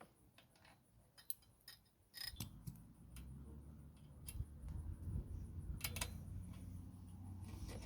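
Faint, scattered metal clicks and ticks from a bicycle brake rod being worked loose by hand. A low rumble of handling noise comes in about two seconds in.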